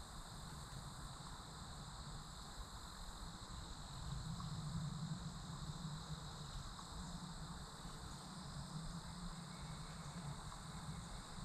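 Steady outdoor chorus of insects, a continuous high-pitched trilling at several pitches at once. A low, uneven rumble lies underneath and grows a little louder about four seconds in.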